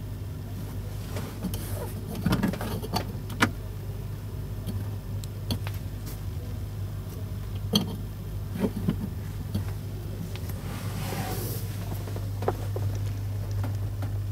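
Scattered clicks and light knocks of the plastic trim panels under a truck's dashboard being handled, over a steady low hum.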